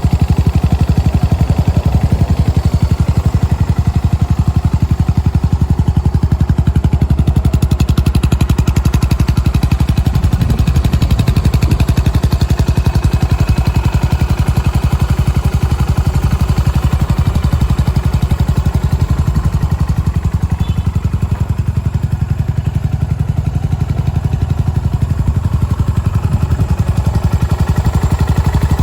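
Yamaha SR400's air-cooled single-cylinder engine idling steadily through a GOODS aftermarket silencer, an even, unbroken beat of exhaust pulses with no revving.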